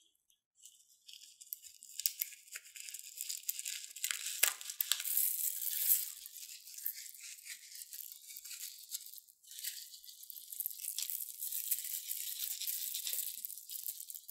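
Fine glitter and small plastic sequins shaken out of a cut-open rubber balloon, rattling down onto slime in a crackly hiss with many small ticks.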